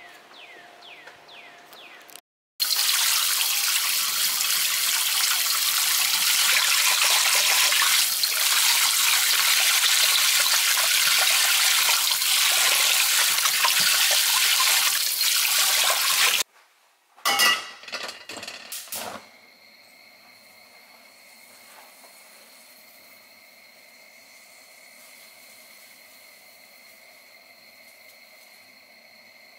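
Kitchen tap water running hard onto a carbon steel wok in a sink while it is scrubbed with a sponge, cutting off suddenly after about fourteen seconds. A few sharp knocks follow, then the faint steady hiss of a gas stove burner.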